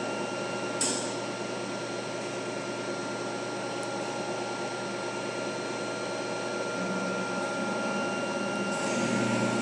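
Automatic soft-serve ice cream vending machine running while it dispenses ice cream into a cup: a steady mechanical whir with held whining tones, a sharp click about a second in, and a deeper hum coming in near the end.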